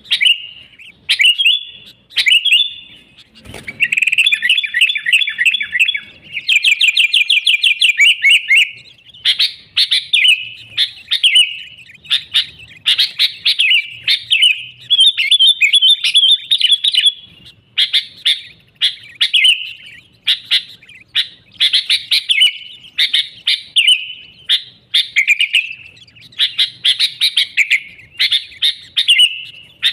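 Sooty-headed bulbul (kutilang) singing and chattering vigorously: a continuous run of quick, short notes, with rapid trills a few seconds in.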